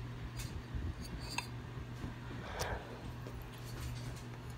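Faint scattered clicks and clinks of a set screw being turned against a ceiling fan light's glass globe, over a steady low hum.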